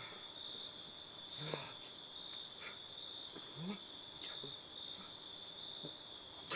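Crickets trilling steadily in one continuous high-pitched tone, with a few faint short voice sounds in the background and a brief click at the end.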